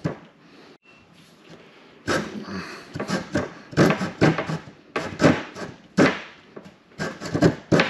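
Coping saw cutting a cope joint in wooden trim molding, with quick back-and-forth strokes starting about two seconds in, about two to three a second. The wood is hard going, which the woodworker puts down to difficult grain that does not want to cut.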